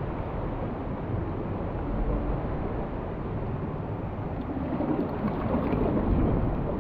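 Sea water sloshing and washing against the rock walls inside a sea cave, a steady noisy wash with a low rumble of wind buffeting the microphone.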